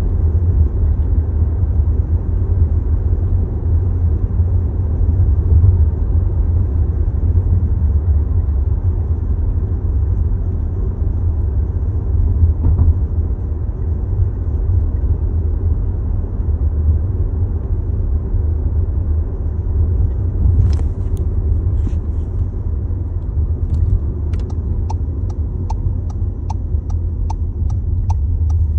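A 2022 Volkswagen Tiguan SE R-Line makes a steady low rumbling vibration, heard from inside the car: the vibration noise that comes on when the start-stop system is active. A few seconds before the end, a sharp regular ticking starts, about two ticks a second.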